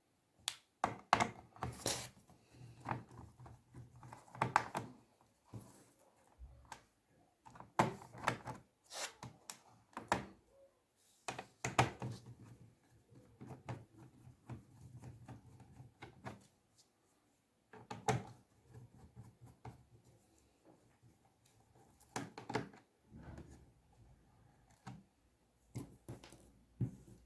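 Small screws being undone from a laptop's plastic top case. Irregular clicks, taps and light knocks come from the screwdriver and the case being handled.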